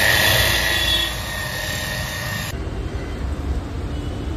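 Electric rotary polisher whirring with a steady high whine as its pad buffs a car headlight. It cuts off about two and a half seconds in, leaving a quieter low rumble.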